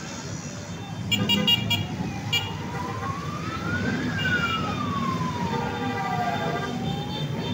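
A siren in a slow wail, rising for about three seconds and falling for two before climbing again, over the steady rumble of motorcycle and tricycle engines. Quick horn beeps come about a second in and again shortly after.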